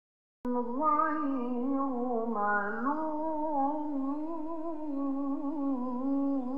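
A person humming a slow tune in long held notes that glide gently up and down in pitch, starting just after a brief silent break.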